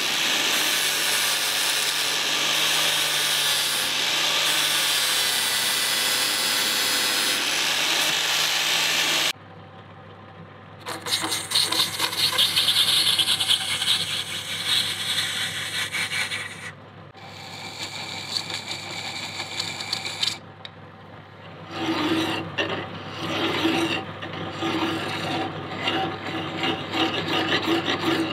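A handheld rotary sanding disc grinds steadily against a brass handle spinning in a lathe, with the tool's motor whining, until it stops abruptly about nine seconds in. After that a flat hand tool scrapes the turning brass, and near the end a file is worked against it in strokes about a second apart, over the steady hum of the lathe.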